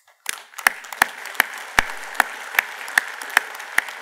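Audience applause that starts suddenly about a quarter second in, with loud single claps standing out in a steady beat, about two and a half a second, over the general clapping.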